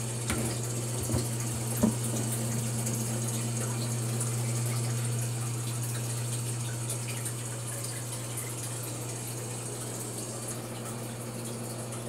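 Water running steadily from a homemade terrarium canister filter, over the steady low hum of its pump. A few light knocks in the first two seconds.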